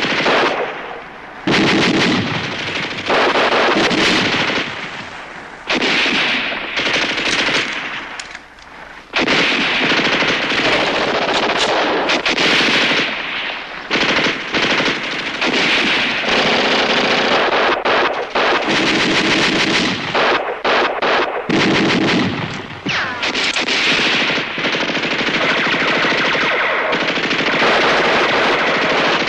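Battle sound effects of a TV war drama: machine-gun bursts and rifle shots overlapping almost without a break. There are a couple of brief lulls in the first ten seconds.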